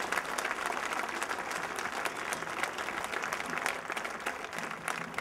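Crowd applauding: dense, steady clapping from many people.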